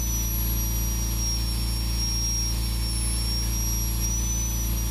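High-speed power carver with a tiny pointed carbide finishing burr, whining steadily as it cuts outline grooves in wood. The high-pitched whine sags slightly under load for a couple of seconds, then comes back up.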